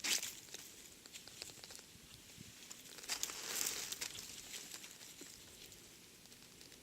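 Rustling and crackling, loudest at the start and again about three seconds in, with scattered small ticks in between.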